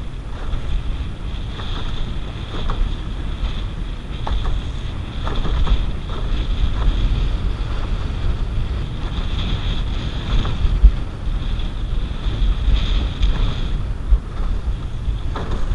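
Strong wind buffeting the microphone, with choppy water splashing around a canoe.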